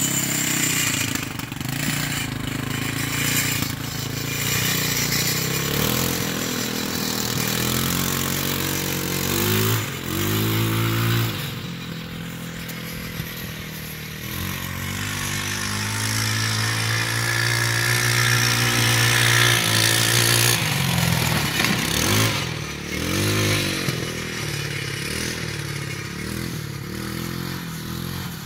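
TaoTao 150cc four-stroke ATV's single-cylinder engine running under way, its pitch rising and falling as the throttle is opened and eased off, with a steadier stretch in the middle.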